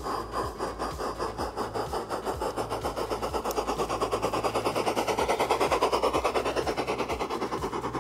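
G-scale model steam locomotive running past close by with its freight wagons, making a rapid, even beat that grows loudest about five to six seconds in as it passes, over a faint steady hum.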